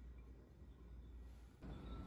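Near silence: quiet diner room tone with a low hum, which grows a little louder about one and a half seconds in.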